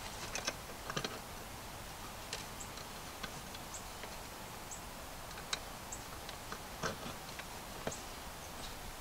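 Scattered light clicks and taps from hand work on a ground wire connection in an electrical box, a dozen or so irregular clicks over a quiet background.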